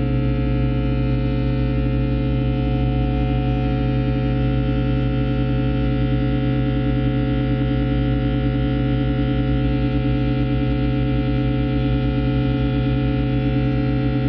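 Experimental drone music from guitar and MIDI controller: a dense stack of steady sustained tones with a slow wavering beat in the low-middle tones.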